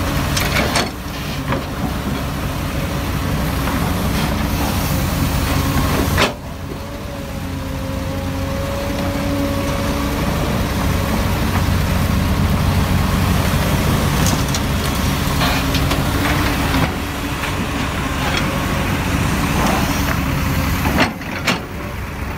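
Komatsu PC350 excavator's diesel engine running steadily under working load as the machine digs and loads, with a sharp knock about six seconds in.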